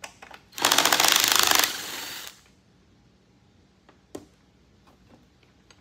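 Cordless impact driver hammering for about a second as it loosens the screw of a band clamp on a dry sump oil tank, then winding down, followed by a single small knock.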